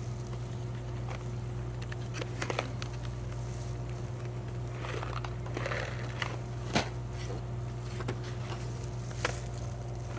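Shop background: a steady low hum, with a few sharp clicks and a brief rustle as small items are handled.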